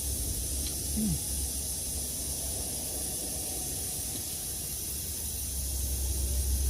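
Steady hissing noise over a low steady hum, with one short falling tone about a second in.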